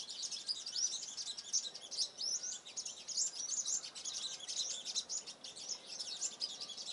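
Sunbirds twittering: a dense, unbroken stream of quick, high chirps, many of them short downward-sweeping notes.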